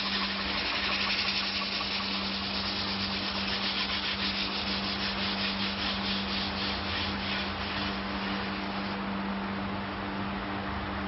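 Sanding a spinning wooden plate on a wood lathe: abrasive held by hand against the turning wood gives a steady scratchy hiss over the lathe motor's steady hum. The scratching drops away about nine seconds in, leaving the motor running.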